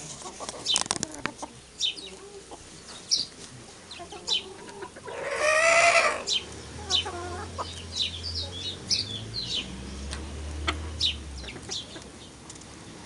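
Silver Appenzeller Spitzhauben chickens clucking and calling, with short high calls throughout. About five seconds in comes one loud, drawn-out call, about a second long.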